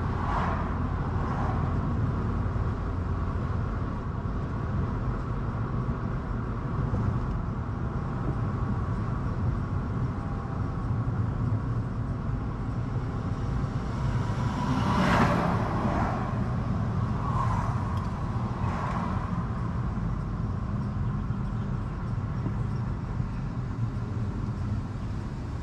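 Steady low rumble of a car driving, engine and tyre noise, with a brief louder rush about fifteen seconds in.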